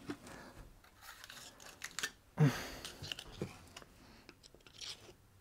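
Scattered small clicks, taps and scraping of hand tools being handled and worked at a jammed paper shredder while its motor is stopped.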